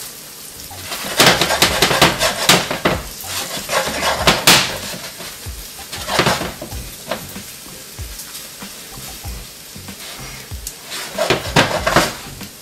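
Metal cookware and utensils clattering in several bursts, with food sizzling in a frying pan between them.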